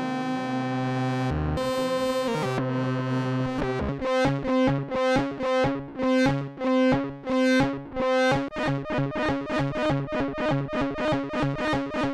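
Behringer CAT analog synthesizer loops playing back: a held droning note whose pitch shifts about a second and a half in. From about four seconds, a repeating pulsed pattern of notes at about two a second takes over, quickening to about three a second after eight seconds.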